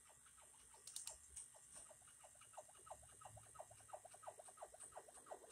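Small Taolei pneumatic piston engine model running slowly on low air pressure: faint, quick mechanical clicking from its piston and valve, irregular at first and settling into a steady run of about five clicks a second from about halfway in.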